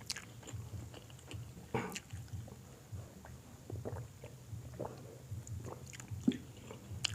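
A person eating, chewing with irregular wet mouth clicks and smacks.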